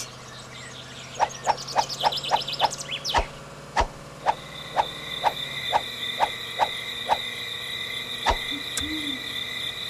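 Night-time nature sound effects: a run of short repeated croaks, about three a second at first and slowing, with a steady high insect trill joining about four seconds in and a soft owl hoot near the end.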